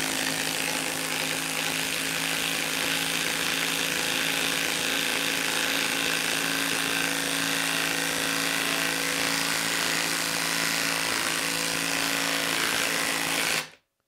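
Makita XWT11 cordless impact wrench hammering a 4-inch lag screw into a wooden stump. It runs steadily under load for about thirteen and a half seconds and stops abruptly just before the end.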